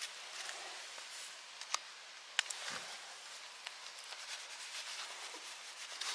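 Knife cutting a zander fillet away along the backbone, a faint rustle of the blade through the flesh with a few sharp clicks, loudest about two seconds in, as it catches on the bones.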